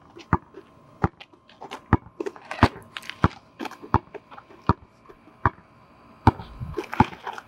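Basketball dribbled on an asphalt court: a series of sharp bounces, roughly one every two-thirds of a second, slightly uneven.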